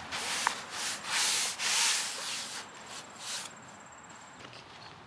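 Hook-and-loop (Velcro) seat pads being pressed and pulled into place on a mobility scooter seat: several short rubbing, rasping strokes, loudest about one to two seconds in, dying away after about three and a half seconds.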